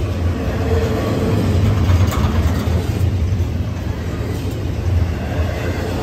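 Double-stack intermodal freight cars rolling past at speed: a steady low rumble of wheels on rail.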